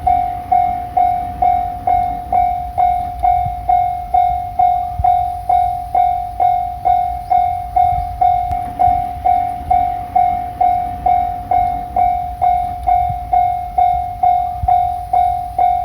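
Japanese railway level-crossing warning bell (fumikiri alarm) ringing, an even electronic ding repeating about twice a second, each ding fading before the next. A low rumble runs underneath.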